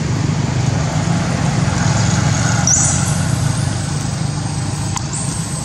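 A motor vehicle engine running with a steady low hum, with a few short high bird chirps over it.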